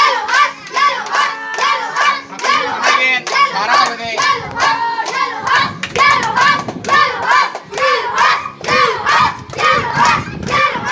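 A group of children clapping a steady beat together while chanting, voices rising and falling over the claps.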